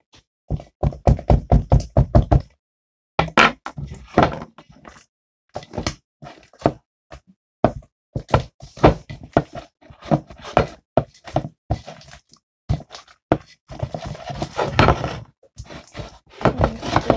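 Rapid knocks and taps close to the microphone as sticky slime is handled and pressed into its container: a quick, even run of about six knocks a second near the start, then irregular knocks and thumps.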